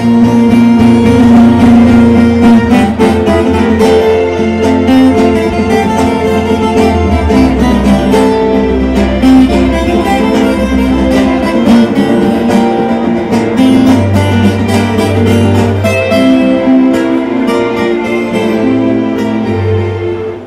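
Live instrumental passage of regional Rio Grande do Sul (gaúcho) music: nylon-string acoustic guitars plucked over long held keyboard notes, without singing.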